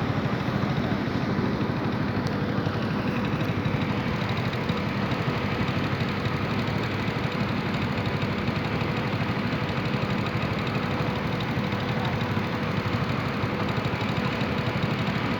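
Motorcycle engine running at a steady speed during a ride, with a rapid even pulsing and road and wind noise.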